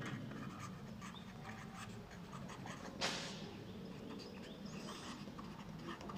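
Marker pen writing on notebook paper: faint, scratchy strokes, with one louder, brief noise about three seconds in.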